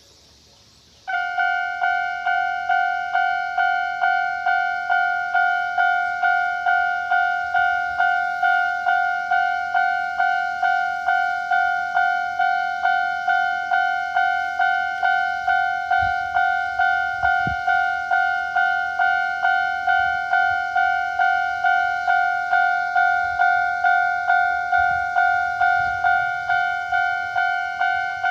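Japanese railway level-crossing alarm starting about a second in and ringing steadily at about two strikes a second. It is the older standard electronic crossing tone, in its higher-pitched version.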